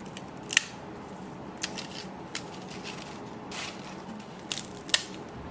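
Crisp puffed tapioca-pearl crackers crackling and snapping as fingers break and handle them: a handful of short sharp cracks, the loudest about half a second in and near the end, over a faint steady hum.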